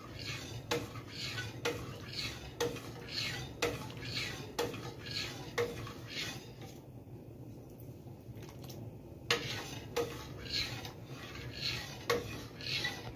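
Long metal spoon stirring strawberry atole in a large stainless steel pot, clinking against the side of the pot about twice a second, with a pause of a few seconds midway before the clinking resumes.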